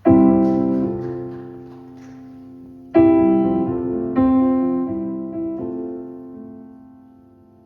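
Solo piano opening a slow ballad: sustained chords struck a few seconds apart, each left to ring and fade before the next.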